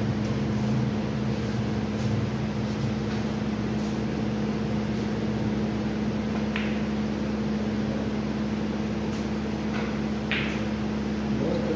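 Steady hum of an electric fan running in a hall, with a few faint sharp clicks of snooker balls being struck, the clearest about six and a half seconds in and again near the end.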